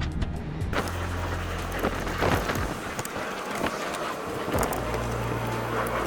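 Rustling and scraping from someone moving about on the ground under a car, with scattered, irregular clicks and knocks.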